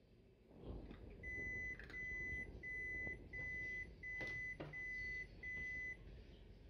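An electronic beeper sounding seven even beeps of about half a second each, one pitch throughout, over a low background rumble with a few faint clicks.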